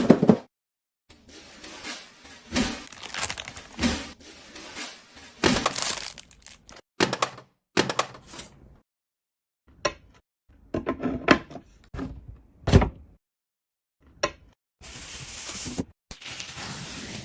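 Packaging of a boxed computer monitor being handled and opened: rustling and scraping with sharp knocks, cracks and thumps, in short bursts broken by sudden silent gaps.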